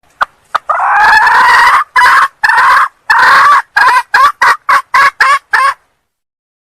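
Female red junglefowl calling: a few long drawn notes, then a run of about eight short notes that come quicker and quicker before stopping.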